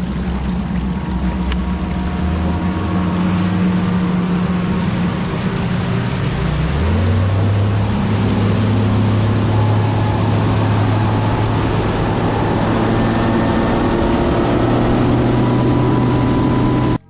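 Bass boat's outboard motor running under way, with wind and water noise; the engine's pitch steps up about seven seconds in.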